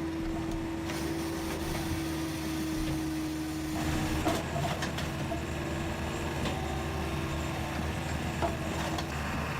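Firewood processor running: a steady engine and hydraulic drone with a held hum, and a few light knocks of wood.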